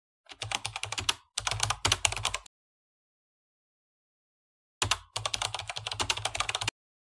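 Rapid typing on a computer keyboard in three runs of quick keystrokes: two short runs in the first two and a half seconds, then another about five seconds in, with dead silence between.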